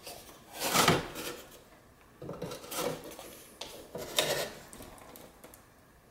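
Steel flat pry bar levered against a wooden shim to pry painted window trim off the frame: wood scraping and creaking with clinks of the metal bar, in three bursts, the loudest about a second in.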